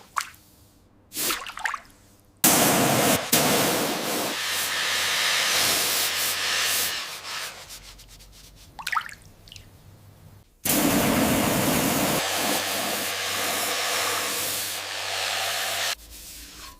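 Two long bursts of hissing spray, each lasting several seconds, with quieter pauses and a few short swishes between them.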